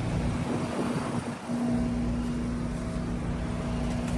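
Outdoor unit of a two-ton RunTru heat pump running: a steady hum of the condenser fan and scroll compressor, with one constant tone. The low end dips briefly about a second in.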